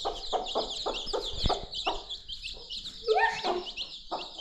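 Chickens clucking, several short clucks over a dense, continuous high-pitched chirping.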